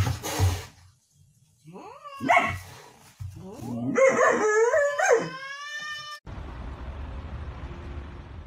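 An animal calling: one short call about two seconds in, then a longer run of wavering, pitch-bending cries, followed by a steady low hiss near the end.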